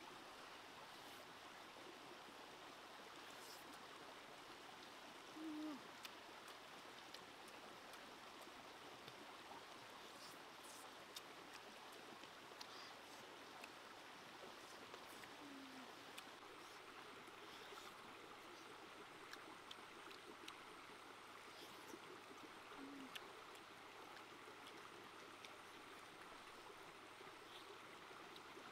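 Near silence with the faint, steady rush of a shallow rocky stream. Three brief low sounds stand out, several seconds apart, the first one the loudest.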